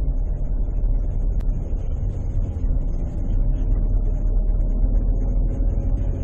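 Steady low rumble of a car's engine and tyres heard from inside the cabin as it drives slowly up a parking garage's ramps.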